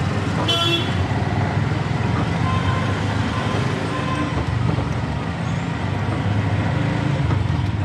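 Steady city road traffic noise with a vehicle engine running close by, and a short horn toot about half a second in.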